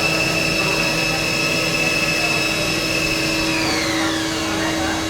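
CNC machine spindle running with a steady high-pitched whine, which falls in pitch as the spindle slows about four seconds in, over a steady lower machine hum.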